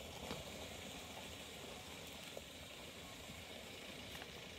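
Faint, steady background hiss with a few light clicks, and no distinct event.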